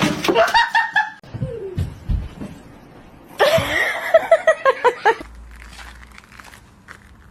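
A person laughing in two bouts, the second a quick run of about half a dozen short "ha" pulses.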